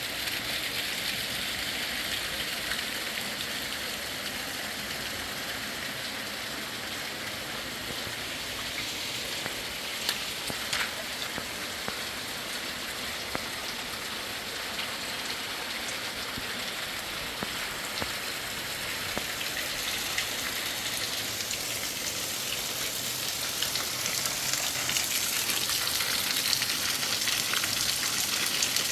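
Steady hiss of water, growing louder over the last few seconds, with a couple of faint clicks about ten seconds in.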